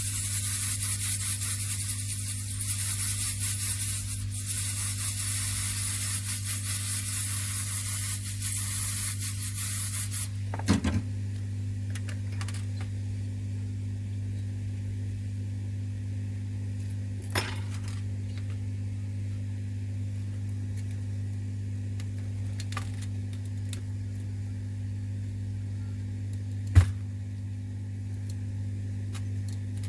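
Hot-air rework gun blowing on the phone screen to soften its adhesive, a steady airy hiss that cuts off about ten seconds in with a knock. A low steady hum carries on throughout, with a few sharp clicks of tools on the phone afterwards.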